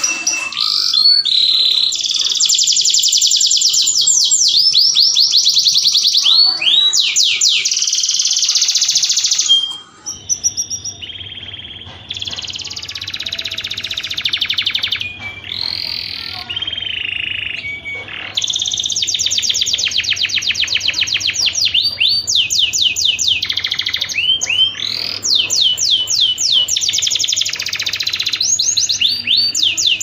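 Domestic canary singing its breeding song: long runs of very fast trills and rolls, with rising and falling sweeps, broken by short pauses. A faint low hum sits under the song from about ten seconds in.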